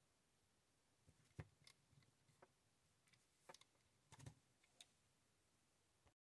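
Near silence: room tone with a handful of faint, irregular clicks and taps spread through the middle of the clip. The sound drops out completely for a moment near the end.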